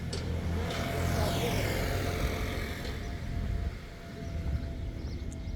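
A motor vehicle driving past, its sound swelling and then falling away, over a steady low rumble.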